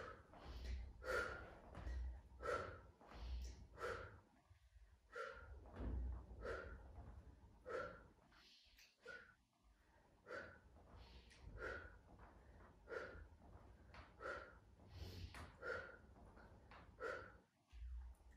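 A woman breathing hard in short, rhythmic puffs, about three every two seconds, from the effort of a repeated side-lying leg exercise.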